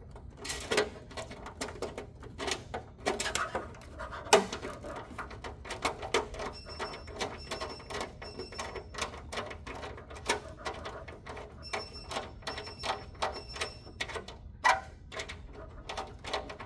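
Small metal clicks and taps of surgical hemostats holding a screw while it is fed up into a hole in the infant warmer's bed frame and started by hand. Two short runs of faint high beeps sound partway through.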